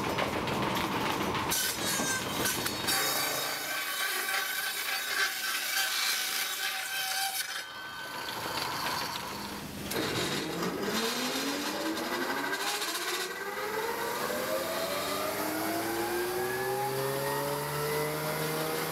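Sawmill machinery running with a dense, noisy clatter. About ten seconds in, a machine's motor starts spinning up with a rising whine that levels off into a steady hum.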